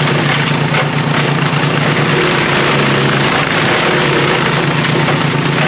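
Mighty Mac WC375 wood chipper's engine running steadily at speed, with a few brief crackling streaks about a second in.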